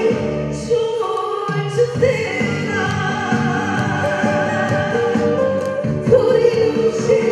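A singer singing a sustained, wavering melody into a microphone over instrumental accompaniment, amplified through a PA.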